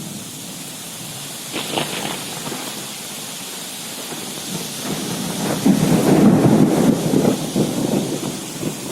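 Heavy rain hissing steadily in a storm. A short rumble comes about two seconds in, and a longer, louder rumble runs from about five and a half to eight seconds.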